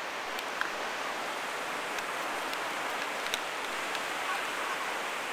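Steady hiss of ocean surf washing onto the beach, with a few faint clicks.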